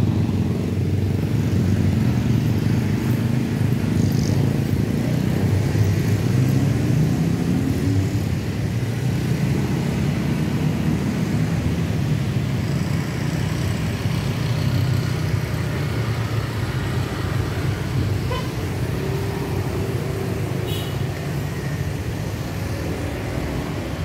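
Motorcycles and cars driving across a railway level crossing as the barrier lifts: a steady mixed engine rumble of road traffic, with the crossing siren already silent.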